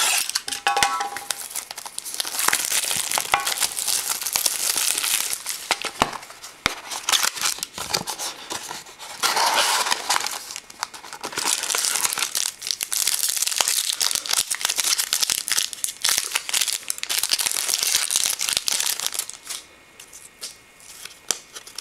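Plastic wrapping crinkling and tearing as a sealed box of trading cards is cut open and unwrapped, then a card pack opened. The sound is a dense crackle with many small clicks, and it goes quieter near the end.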